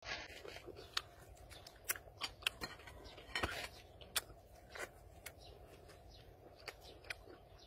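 Close-up eating sounds of a man biting and tearing into a whole cooked snake: scattered sharp crunching clicks, the loudest crunch about three and a half seconds in, with chewing.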